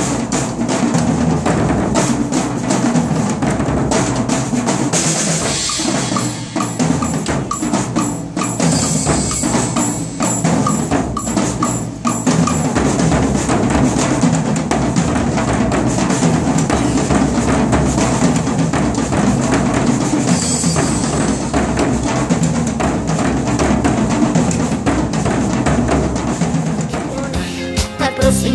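Percussion ensemble playing marching snare drums and bass drums with cymbals, in a fast, dense rhythm.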